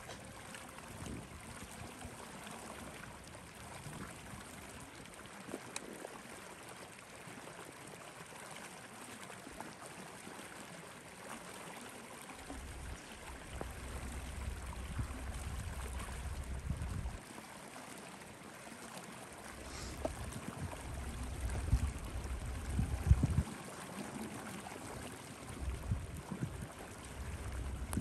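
Steady outdoor wind hiss, with low rumbling gusts hitting the microphone three times in the second half.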